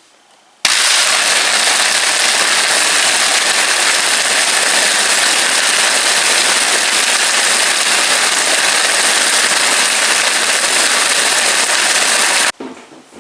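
Countertop blender running at a steady high speed, blending a margarita; it switches on abruptly just under a second in and cuts off suddenly near the end.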